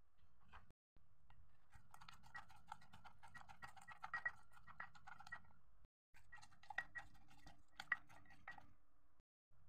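Wooden pestle knocking in a clay mortar while a spoon turns the salad: quick, light knocks several times a second, in two runs with a short break between them. This is the pounding of chilies and tomatoes for som tam.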